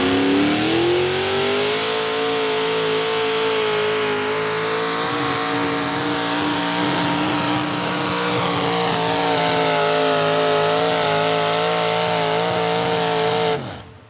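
V8 modified pulling tractor's small-block V8 engine at high revs under load while dragging a weight transfer sled: its pitch climbs over the first two seconds as it launches, holds high and steady down the track, then cuts off suddenly near the end as the pull finishes.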